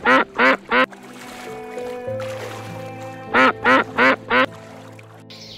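Loud duck-like quacking in two quick runs of four calls, about three seconds apart, over soft background music.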